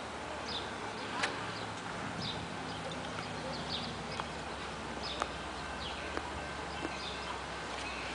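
Small birds chirping over and over in short, falling notes above a low, steady hum, with a few sharp clicks scattered through.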